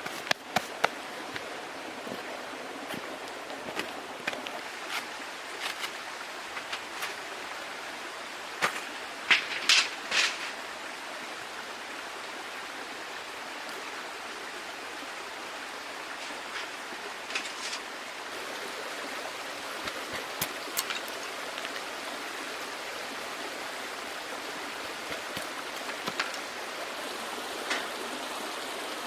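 Small creek babbling steadily, with scattered sharp clicks and a cluster of louder cracks about nine to ten seconds in.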